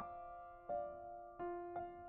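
Slow, soft background piano music, single notes struck one after another and left ringing.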